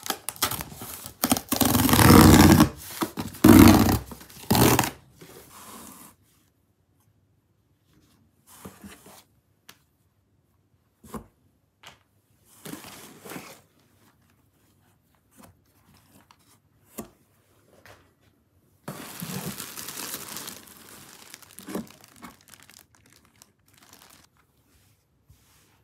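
A cardboard delivery box being torn open, with loud tearing and ripping over the first five seconds. Quieter rustling and handling of the packaged clothes follow, and plastic wrapping crinkles for a couple of seconds about twenty seconds in.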